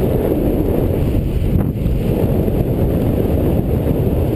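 Steady, loud rush of wind buffeting a paraglider pilot's microphone in flight.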